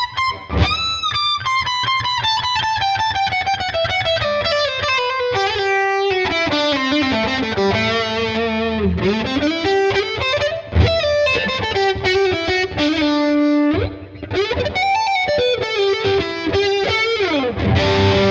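Gibson SG Standard electric guitar with twin humbuckers, played through a distorted tone: a lead solo of single-note runs, sustained notes and string bends, with a long falling line early on and a pitch glide up near the end.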